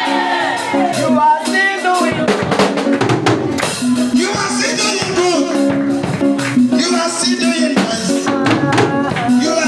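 Live praise music: a drum kit beating steadily under sustained keyboard notes, with voices singing over it.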